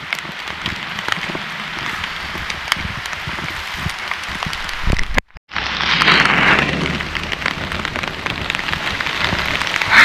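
Heavy rain falling on forest foliage and a paved path, an even hiss with close drops ticking. About five seconds in it cuts out for a moment and comes back louder.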